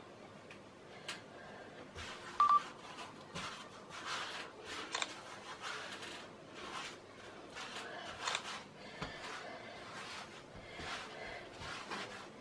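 A short electronic double beep about two and a half seconds in, over quiet scattered taps and rustles of handling.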